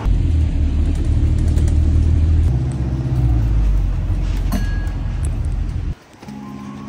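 Low, steady rumble of a moving vehicle, which cuts off abruptly about six seconds in. Soft music with held notes begins near the end.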